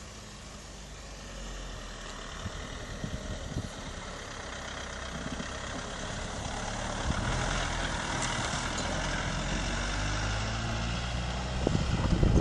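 Mitsubishi L200 pickup's engine running as the truck drives over snow-covered ground, getting steadily louder as it approaches. Near the end there is a louder, rougher stretch with wind buffeting the microphone as the truck starts up a steep bank.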